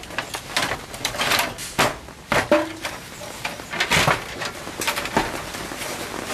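Camping gear being handled and packed away: irregular rustling, scraping and light knocks.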